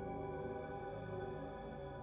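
Quiet ambient background music: a steady drone of many held, ringing tones with no beat.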